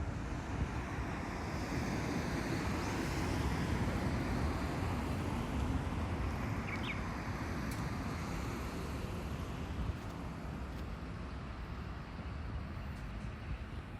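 Road traffic noise: a car passing, swelling over the first few seconds and then fading, with wind on the microphone.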